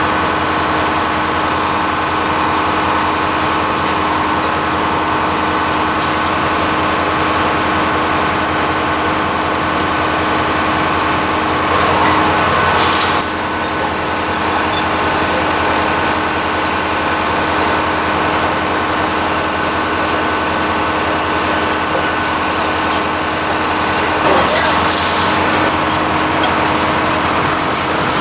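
Diesel machinery of a rail-pickup work train running steadily, with two short bursts of hissing air, about 12 seconds in and again about 24 seconds in.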